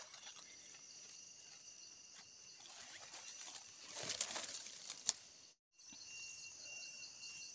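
Hands scraping and brushing loose soil in a freshly dug yam hole, with a louder rustle about four seconds in and a sharp tick about a second later. A faint, steady, high-pitched pulsing runs behind it.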